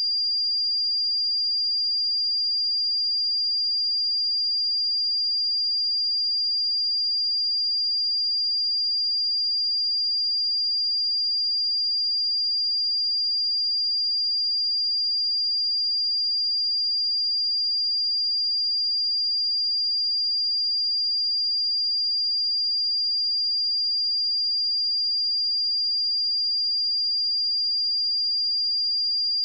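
A single steady 4795 Hz sine-wave test tone: a pure high-pitched beep held at constant pitch and level, used to check speakers or headphones.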